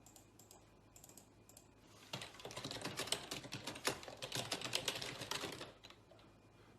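A rapid run of light clicks or taps, starting about two seconds in and lasting about three and a half seconds.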